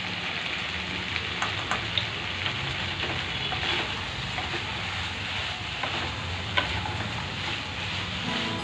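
Soya chunks frying with a steady sizzle in an oiled wok over a gas flame while a wooden spatula stirs them through freshly added red chilli sauce, with a few light knocks of the spatula against the pan.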